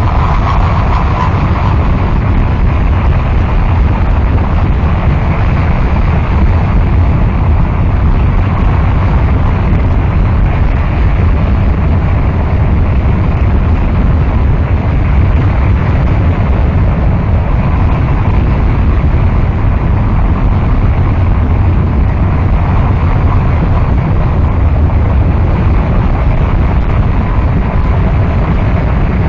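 Noise music: a loud, dense, unchanging wall of rumbling static, heaviest in the bass, with no beat, tune or voice.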